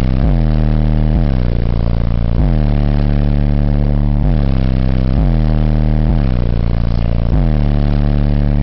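Car audio system of four 15-inch Digital Designs subwoofers playing loud bass-heavy music. It is a run of deep bass notes, each starting with a quick downward pitch drop and then holding, about one a second.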